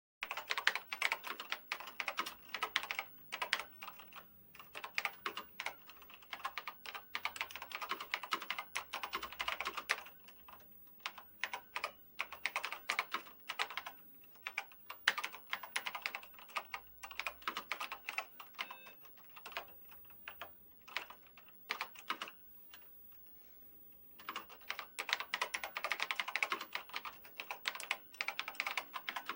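Typing on a telex keyboard: fast runs of keystrokes that thin out to scattered single key presses in the middle. A brief pause comes near the end, then another fast run.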